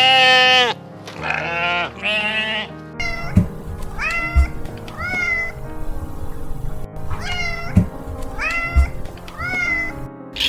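Three loud bleats, then a cat meowing about five times, each meow rising and falling in pitch, over background music with a steady beat.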